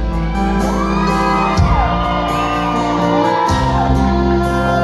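Live country band playing an instrumental fill between sung lines, a lead instrument sliding between notes over steady bass and drums, heard from the audience in a large hall.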